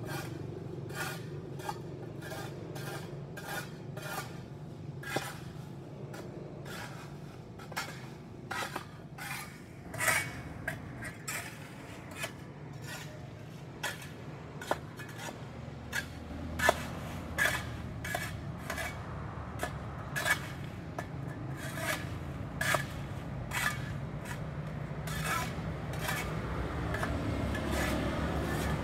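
Hand tools scraping dirt and grime off a paved sidewalk, in many short, irregular rasping strokes, roughly one or two a second.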